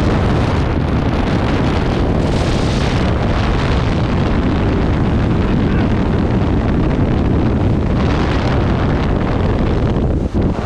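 Loud, steady rush of wind buffeting the microphone, with a deep rumble underneath, with a brief dip just before the end.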